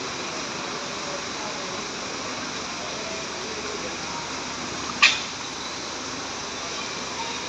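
Steady background hiss with one sharp clack about five seconds in; no siren is sounding.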